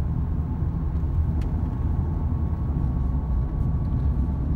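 Steady low road and engine rumble inside a car cabin, the car cruising at about 40 mph, with a faint click about a second and a half in.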